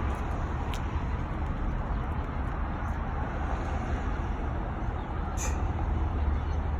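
Steady low rumble with a hiss of outdoor background noise, with a faint click about a second in and a short sharp sound about five and a half seconds in.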